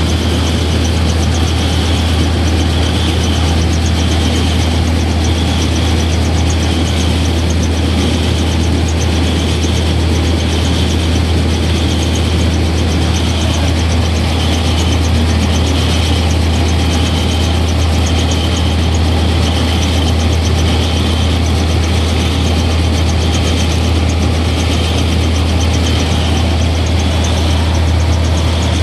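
Small rice milling machine running steadily, a loud, even machine hum with a strong low drone.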